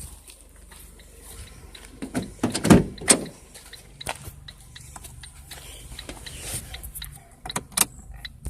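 Scattered clicks and knocks, with a couple of louder thumps about three seconds in, over the steady low hum of a 2007 Ford Focus's 2.0-litre four-cylinder idling.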